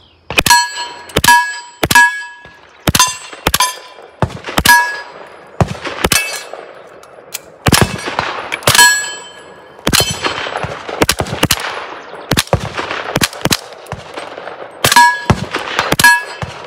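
Suppressed rifle firing a steady string of semi-automatic shots, roughly one or two a second, with a steel target ringing after many of them.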